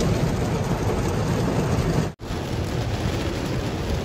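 Heavy rain falling on a car's roof and windshield, heard from inside the cabin as a dense, steady hiss and rumble. The sound drops out for an instant about two seconds in, then carries on.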